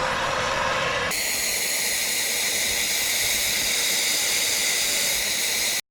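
A steady loud hiss that turns thinner and higher about a second in, then cuts off suddenly near the end.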